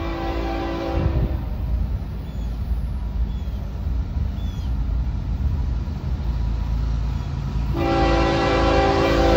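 Air horn of an approaching FEC diesel freight locomotive, a multi-note chord. One blast ends about a second and a half in, and another long blast starts near the end, over the steady low rumble of the locomotives: the warning for the grade crossing ahead.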